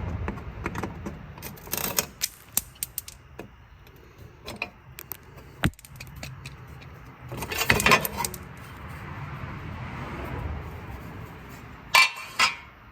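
Hand tools and small metal parts clinking and clattering as they are handled, with scattered clicks, a louder flurry about eight seconds in and two sharp clanks near the end.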